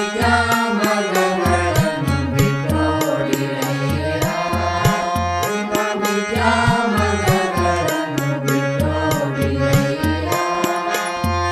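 Devotional hymn in the Carnatic raga Naadhanaamakriye: a gliding melodic line over a steady drum beat and repeating low bass notes.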